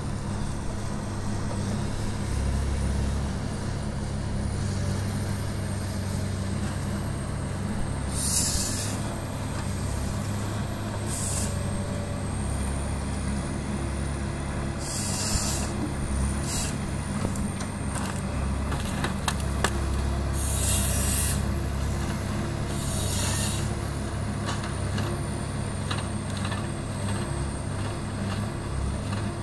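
Komatsu excavator-mounted harvester head processing logs: the diesel engine runs steadily under hydraulic load, broken about six times by short hissing bursts as the head's saw cuts through the logs.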